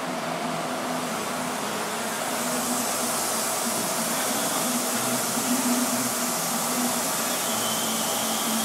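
Steady mechanical hum of running machinery with a held whirring tone, growing a little louder and hissier about two seconds in.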